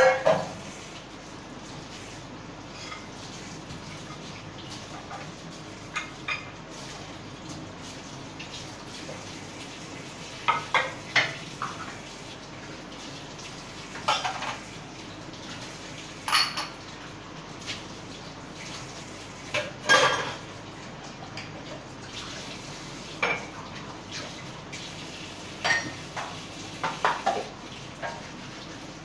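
Dishes and utensils being washed by hand at a kitchen sink: short clinks and clatters every few seconds as they knock against each other and the sink, loudest at the very start and about twenty seconds in, over a steady hiss of running tap water.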